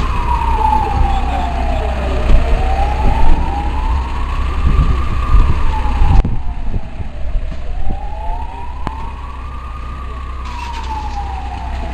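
An emergency siren in a slow wail, its pitch rising and falling about every five to six seconds, over a steady low rumble.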